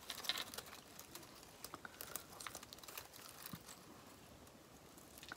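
Faint crinkling and rustling of hands working a berry pick into a decoration of greenery and pine cones, with scattered small clicks.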